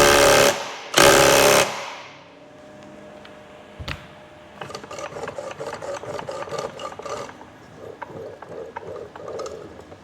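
Two short loud bursts of a power wrench driving a bolt home, then a wrench ratcheting in quick even clicks for a few seconds as a drive clutch bolt is done up.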